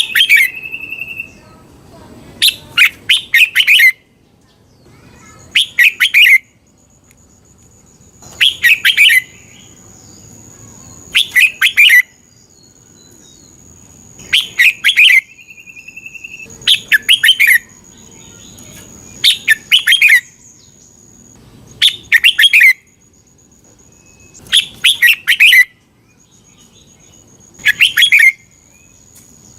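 Red-whiskered bulbul singing: short bursts of quick, bright whistled notes, repeated about every two and a half to three seconds.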